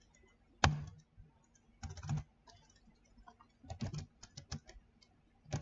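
Computer keyboard being typed on: separate key clicks, with one sharp keystroke a little over half a second in, then short runs of keystrokes.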